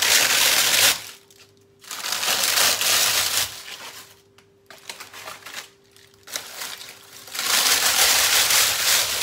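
Thin, crisp fried dough sheets (trid for filalia) being crushed and broken up by hand, crackling and crunching in three loud spells with quieter crunching between.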